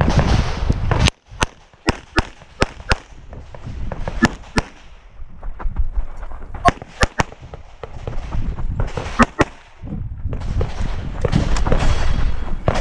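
Handgun shots fired during a practical-shooting stage run. The shots start about a second in and come mostly in quick pairs, two per target, with short pauses between groups as the shooter moves between positions.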